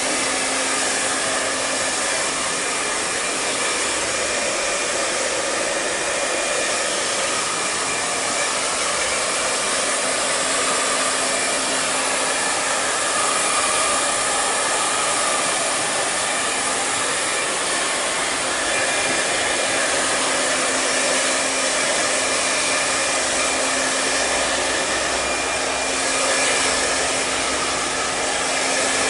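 Handheld hair dryer running steadily as it blow-dries long wet hair: a continuous rush of air over a low, steady motor hum.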